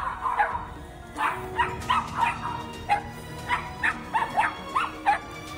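A dog barking in rapid, sharp barks, about three a second, while lunging at and biting a cordless stick vacuum's floor head: an aggressive reaction to the vacuum cleaner.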